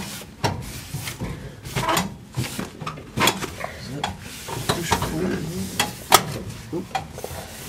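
Irregular clicks, knocks and light metallic rattling as hands work a lever and knob under the dashboard of a 1953 Chevrolet truck.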